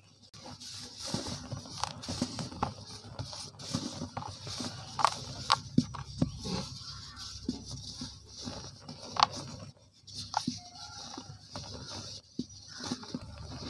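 Lumps of soft, slightly hardened cement crumbled and crushed between the fingers: irregular crunching and crackling, with a few sharper snaps from harder bits and a soft hiss of falling powder.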